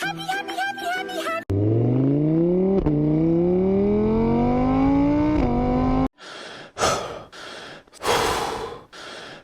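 A car engine accelerating hard, its pitch climbing and dropping back at two gear changes, followed by several loud gasps. It is preceded by a moment of music.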